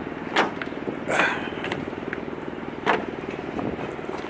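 A vehicle engine idling with a steady low pulse, with three brief clatters over it, about half a second in, a second in and near three seconds.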